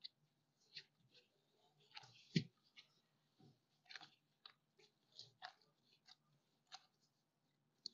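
Faint, irregular squishing and crunching of softened butter being rubbed with sugar and salt by a gloved hand in a stainless steel bowl, to soften the butter before the eggs go in. There is one sharper click about two and a half seconds in.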